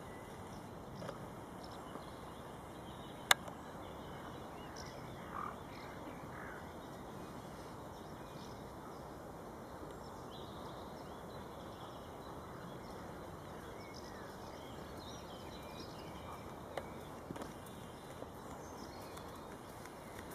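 Outdoor rural background: steady low noise with birds calling now and then, and one sharp click about three seconds in.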